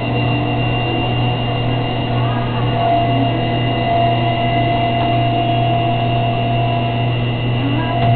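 Wascomat front-loading commercial washers in their first spin cycle: a steady low motor hum, with a higher whining tone that comes in about three seconds in.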